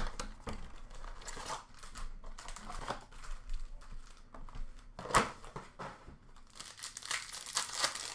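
Hands opening an Upper Deck hockey blaster box and tearing into its foil-wrapped card packs: irregular crinkling and ripping of cardboard and wrappers, loudest about five seconds in and busiest near the end.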